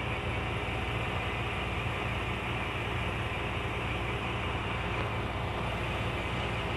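Steady hiss and mechanical running of a disinfectant sprayer misting through its hose-fed wand, over a constant low hum.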